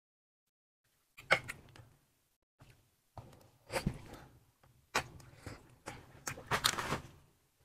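Eating sounds: bites into sausages in a spicy sauce, with wet mouth and chewing noises and several sharp clicks, starting after about a second of silence.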